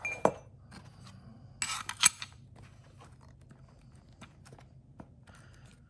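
Small metal clicks and a short scraping rattle about two seconds in, ending in a sharp click, as the holder plate of a phone-motherboard heating station is unlocked and slid out to be changed; a faint steady low hum runs underneath.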